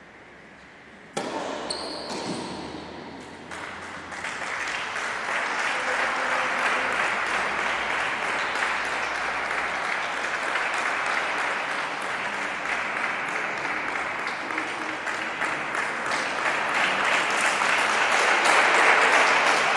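A sharp knock about a second in, then spectators clapping in a large sports hall, the applause building and loudest near the end as the tennis match finishes.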